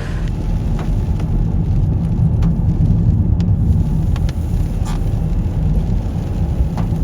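Steady low rumble of road and engine noise inside a moving Toyota Corolla, with a few faint separate clicks.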